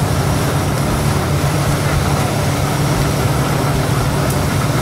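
A steady low mechanical hum, like an engine idling nearby, running evenly under a background hiss.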